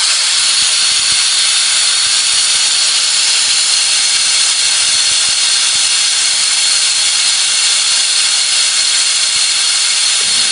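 Compressed air hissing loudly and steadily out of an opened valve on a compressor's receiver tank, with a faint high whistle in it: the tank is being bled down and its pressure is falling.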